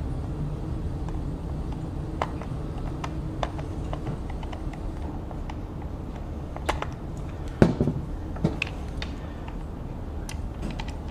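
Small scattered clicks and ticks of self-tapping screws being turned by hand with a screwdriver into the old plastic base of a Singer sewing machine foot pedal. The screws are eased in to catch the threads they first cut. A sharper click comes about seven and a half seconds in.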